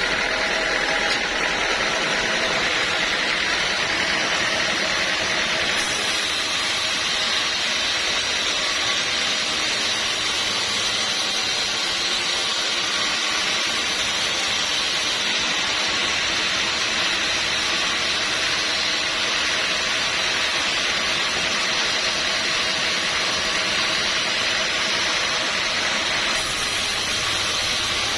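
Sawmill machinery, likely the band saw, running steadily with a continuous, even machine noise.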